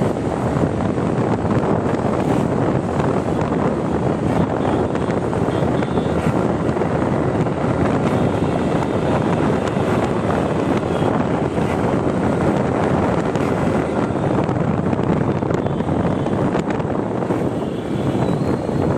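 Steady wind rush over the microphone of a phone on a moving motor scooter, with the scooter's engine and road noise underneath.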